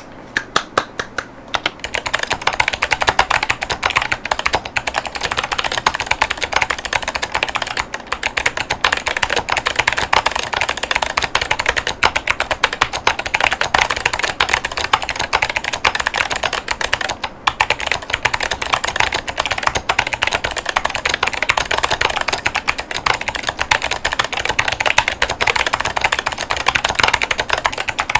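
Typing on a Keychron K10 Pro mechanical keyboard with Kailh White Owl V2 clicky switches and ceramic keycaps. A few separate key clicks come first, then a dense, continuous stream of clicks, with a brief pause about seventeen seconds in.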